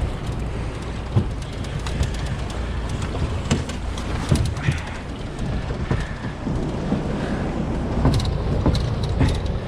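Steady low rumble, with scattered sharp knocks and clicks from gear being handled in a boat.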